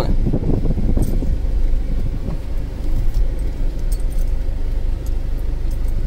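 Car engine and tyre rumble heard from inside the cabin as the vehicle rolls slowly, with a few light rattles and clicks.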